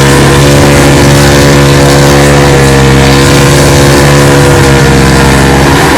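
A loud engine held at steady high revs, its pitch sagging slightly in the middle and climbing back.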